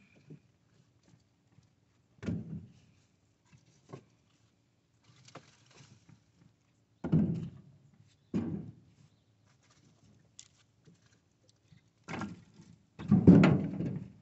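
Split firewood pieces tossed into a pickup truck bed, each landing with a separate thunk, about seven in all at irregular intervals of one to two seconds; the loudest comes near the end.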